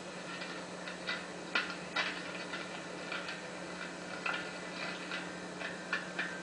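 Light clicks and ticks at irregular intervals over a steady low electrical hum, heard through a television's speaker playing back an old home-video tape.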